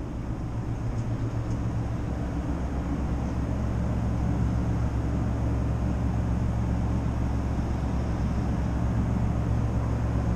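Steady low drone of a ferry's engines and machinery, with an even rushing noise over it.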